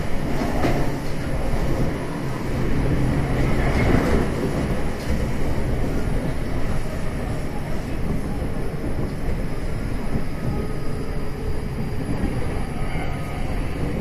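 Kintetsu 6400 series electric train running, heard from inside the passenger car: a steady rumble of wheels on rail with traction-motor drone, the motors fed by a SiC VVVF inverter. A few louder swells come near the start and about four seconds in, and faint steady tones show in the later seconds.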